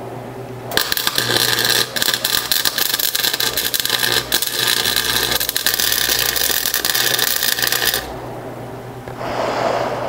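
Wire-feed (MIG) welder arc crackling as a bead is run welding a steel sprocket onto a smaller sprocket's hub. It starts about a second in, stops about eight seconds in, and has a few brief breaks.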